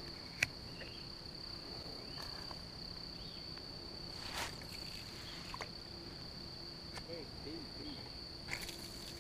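Steady, high-pitched insect chorus holding one continuous tone, with a few faint clicks and ticks scattered through.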